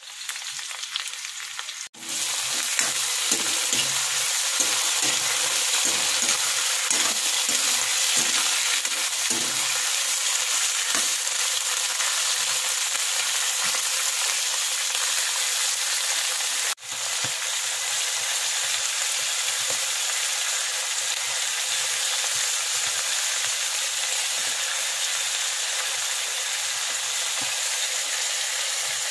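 Vegetables sizzling in hot oil in a pan, stirred with a metal spatula. The sizzle is a steady dense hiss that drops out briefly twice, about two seconds in and again about seventeen seconds in.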